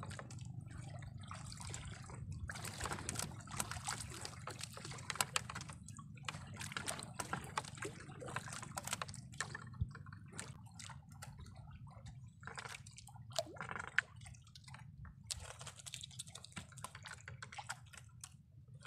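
Small waves lapping and splashing against a small boat's hull in irregular bursts, over a steady low rumble.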